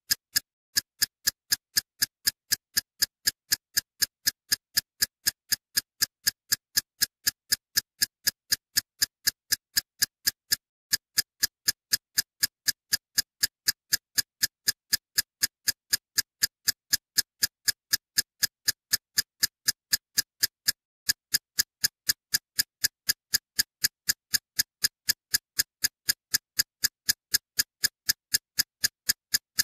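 Steady, even ticking, about three sharp ticks a second, with a brief break about every ten seconds as the track loops.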